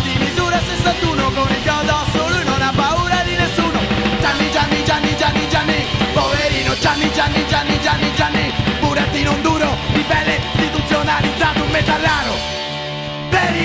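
Punk rock band recording with drums, electric guitar and bass playing fast. Near the end the drums drop out for about a second under a held note, then the full band crashes back in.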